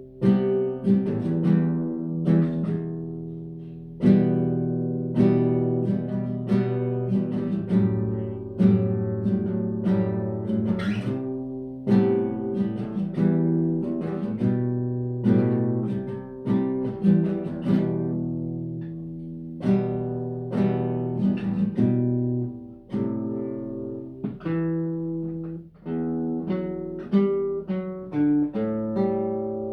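Guitar music: plucked notes and chords, each struck sharply and left to ring out and fade.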